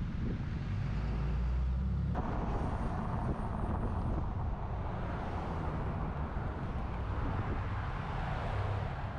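Vehicle driving along a road: a steady low engine and road rumble with wind and tyre hiss from a roof-mounted microphone, the hiss getting louder about two seconds in.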